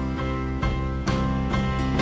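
Instrumental background music: sustained chords with a new note or chord coming in every half second or so.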